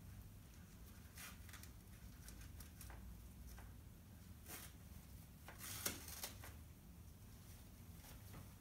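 Near silence with faint rustling and a few soft clicks as hands fasten the ties of a catheter leg bag, over a low steady hum.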